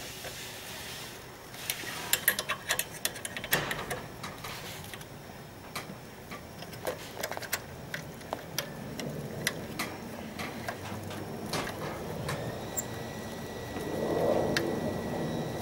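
Irregular small metallic clicks and taps of an Allen wrench working a bolt on an aluminium fairing clamp around the fork tube, with a duller handling sound near the end.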